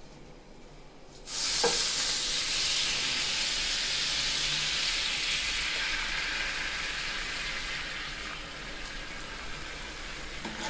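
Beef braising juices poured into a pan on high heat, breaking into a sudden loud sizzle about a second in. The sizzle then goes on steadily and slowly grows quieter as the liquid settles to a boil and starts to reduce.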